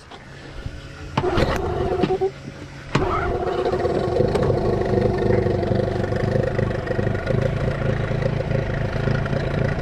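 Boat's outboard motor starting: it briefly catches about a second in and dies, then starts again about three seconds in and settles into steady running.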